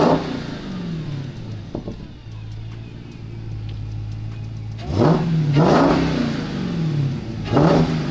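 Dodge Challenger SRT Hellcat's supercharged 6.2-litre Hemi V8 idling and being blipped: a rev dies away at the start, then it is revved again about five seconds in and once more near the end, each falling back to idle. The revs carry the whine of the supercharger breathing through a freshly fitted LMI cold-air intake.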